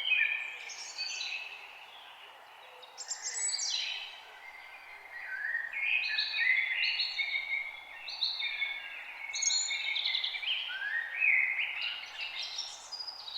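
Songbirds singing in a forest, several warbling phrases overlapping with short lulls between, over a faint steady background hiss.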